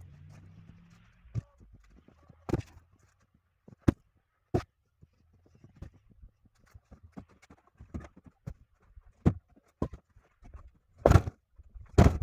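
Irregular hard knocks and thuds of pine log ends being tossed off a truck onto a woodpile, the heaviest ones near the end.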